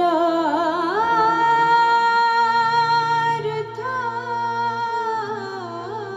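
A woman singing a ghazal, holding long notes with wavering ornamental turns, over the harmonium's steady sustained notes.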